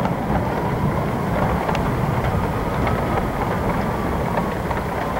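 Strong storm wind gusting through trees and buffeting the microphone with a steady low rumble. A faint siren wails slowly up and then down behind it.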